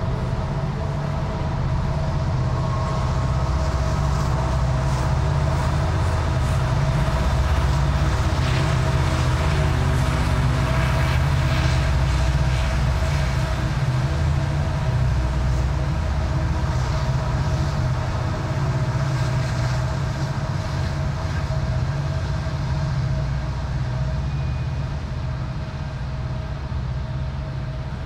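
Freight train going by: diesel locomotives running with a steady low rumble and a constant whine, over the clatter of freight cars rolling on the rails. It grows louder toward the middle and eases off near the end.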